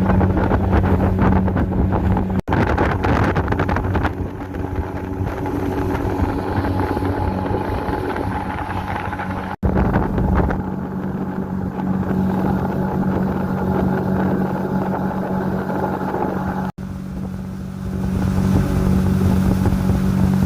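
Outboard motor of a river boat running steadily under way, with wind buffeting the microphone.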